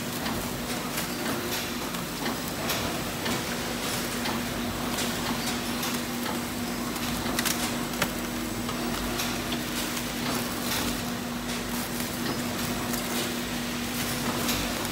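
Automatic labelling machine and its conveyor belt running: a steady motor hum with frequent light clicks and ticks as labels are fed and brushed onto plastic bags, and a couple of sharper clacks about halfway through.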